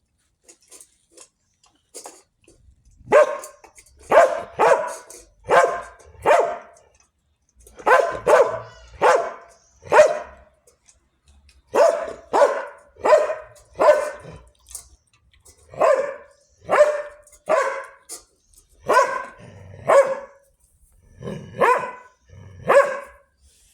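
A dog barking over and over, in runs of a few barks with short pauses between.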